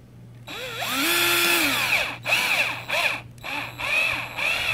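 Power drill driving small screws into a plastic RC-truck differential case. One long run of about a second and a half, then several short trigger bursts, the motor whine rising and falling with each.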